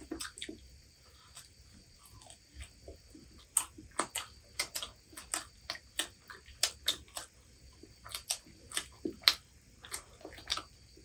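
Chewing and biting into crispy fried chicken lollipops: irregular crunches and clicks at close range. They come sparsely at first and get busier from about three and a half seconds in.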